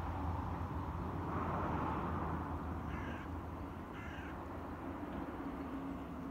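Two short bird calls about a second apart, over a steady low rumble.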